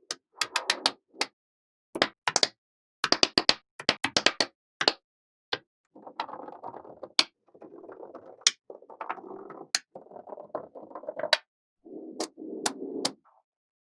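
Small neodymium magnetic balls clicking sharply as they snap together, in quick clusters. After about six seconds the clicks give way to a softer, longer scraping rattle of the balls rolling and rubbing against each other, with an occasional click.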